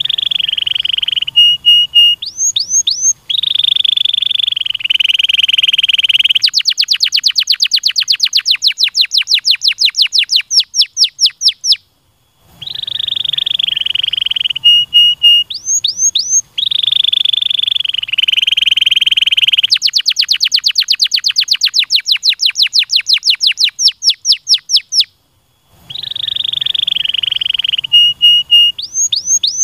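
Domestic canary singing loudly. Buzzy rolling trills alternate with short rising whistles and long runs of rapid falling notes, about six a second. The same song sequence sounds twice, each time ending in a brief pause.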